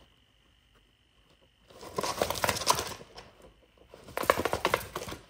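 Two bursts of rapid rustling and scratching, each over a second long, one about two seconds in and one near the end, as guinea pigs push and root their heads inside a cardboard tissue box.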